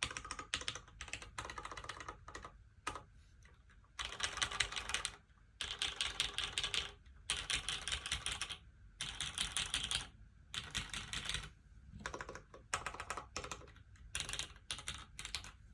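Typing on a LifeZone LZ CLSn mechanical keyboard: a 96% top-mount board with a full aluminium plate, lubed and filmed vintage Cherry MX Black linear switches and GMK keycaps. The keystrokes come in quick bursts of rapid clicks, separated by short pauses.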